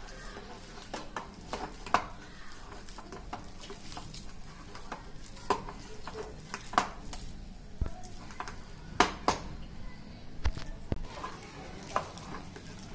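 A hand kneading a moist shrimp and mashed green-banana kofta mixture in a stainless steel bowl: soft squishing, broken by irregular sharp clinks as the fingers knock against the metal bowl.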